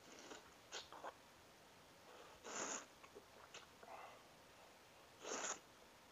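A person slurping instant noodles from a fork: two loud slurps, about two and a half seconds in and again near the end, with short sucking and lip-smacking sounds before them.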